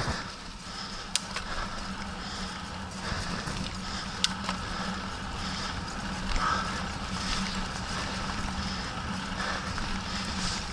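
Mountain bike rolling at pace on a dirt track: steady tyre and riding noise, with the rider's breathing close to the camera's microphone puffing every second or so. Two sharp clicks from the bike, about a second in and about four seconds in.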